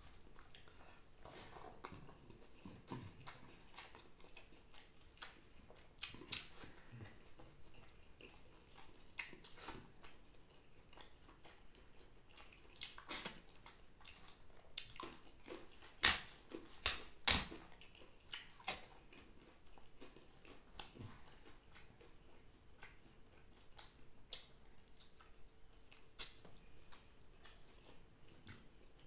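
Eating by hand from a banana leaf: soft wet sounds of rice being mixed with the fingers and chewing, broken by scattered sharp clicks and crunches. The loudest are three crunches close together a little past halfway, as fried banana chips are bitten. A faint steady hum runs underneath.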